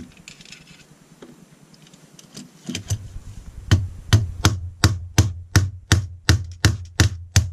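A small hammer tapping the roll pin that holds an aluminium trigger guard into an AR-15 lower receiver. After a few seconds of quiet handling come about a dozen even, sharp taps, roughly three a second.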